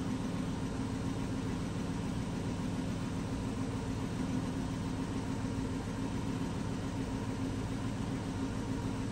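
2008 Chrysler 300C's 5.7-litre HEMI V8 idling steadily, still warming up from a cold start.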